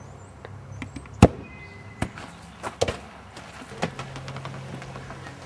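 A ball bouncing: a few sharp knocks at uneven intervals, the loudest about a second in, the others spread over the next three seconds.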